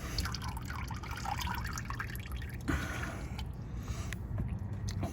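Motor oil dripping and trickling from the oil filter as it is unscrewed by hand, an irregular patter of drops with small ticks from handling the filter.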